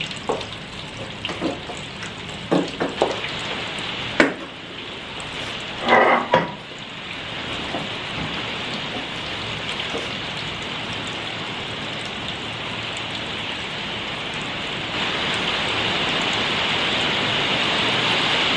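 Heavy rain falling steadily, a little louder near the end, with a few short knocks in the first several seconds.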